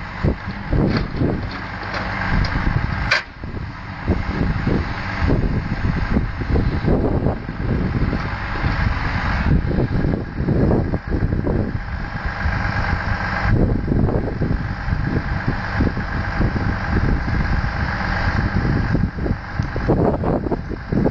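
Diesel engine of a Volvo timber lorry running under load, driving the hydraulics of its Loglift crane as it loads logs. A higher whine rises and falls in stretches as the crane works, with a sharp knock about three seconds in.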